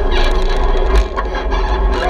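Off-road vehicle engine running over a rough trail, with a steady low rumble and scattered knocks and rattles.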